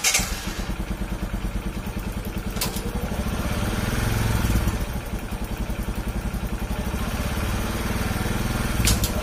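Bajaj CT 110X's single-cylinder four-stroke engine idling with a steady pulsing beat. The revs rise a little around four seconds in and then settle.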